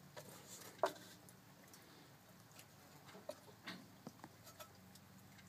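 Faint scattered clicks and taps of metal as the air cleaner's hold-down nut is worked at by hand, with one sharper click about a second in, over a faint low hum.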